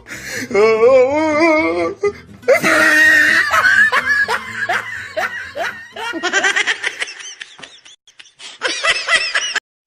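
Laughter: a wavering laugh, then a long, breathy burst of laughter, then two short runs of quick 'ha-ha-ha' pulses near the end.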